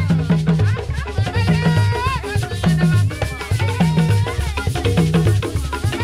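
Basoga traditional music: a wooden xylophone struck with sticks, playing a fast repeating pattern over hand drums beating a steady low rhythm.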